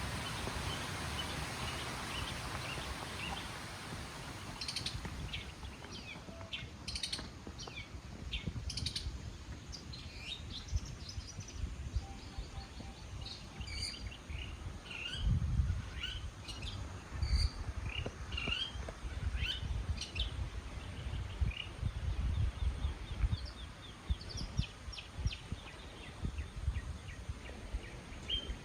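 Small birds chirping and calling again and again, short high notes scattered across the whole stretch. Under them a hiss fades in the first few seconds, and from about halfway through there are low thuds and rumbles, the loudest near the middle.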